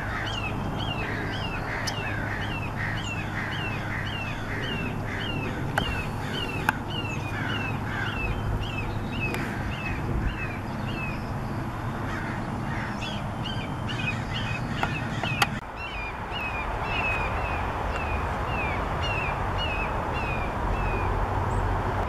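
Red-shouldered hawk calling a long series of short, downward-sliding kee-ah screams, about two a second, with a brief pause partway through.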